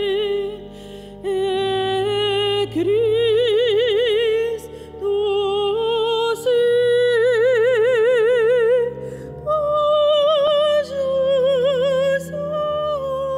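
A solo female voice singing slow, long held notes with strong vibrato, phrase by phrase, over soft sustained low accompaniment.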